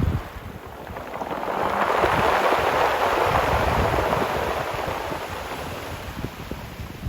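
A sea wave surging in and washing back, a hiss that swells for a couple of seconds and then slowly fades. Wind rumbles on the microphone underneath it.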